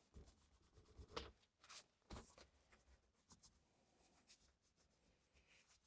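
Near silence, with a few faint clicks and rubs of small plastic parts being handled.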